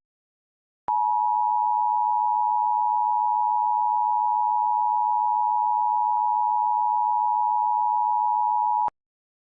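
Emergency Alert System two-tone attention signal (853 and 960 Hz sounding together), a steady tone held for about eight seconds. It starts sharply about a second in and cuts off abruptly near the end.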